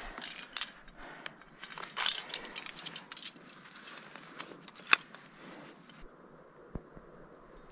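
Climbing gear clinking: carabiners and quickdraws jangling on a climber's harness, mixed with scuffs of hands and shoes on rock, in irregular bursts. There is one sharp click about five seconds in, and it goes quieter near the end.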